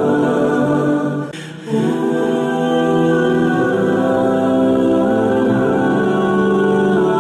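Background vocal music sung a cappella, with several voices holding long sustained notes. There is a brief pause about a second and a half in.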